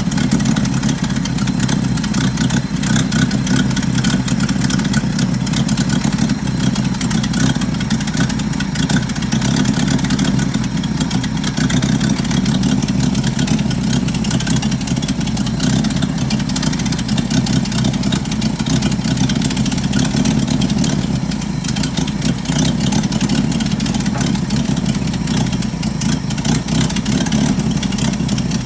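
1975 Bedford CJ truck engine running steadily, with the rapid, loud puffing of a nasty exhaust leak riding on the engine note.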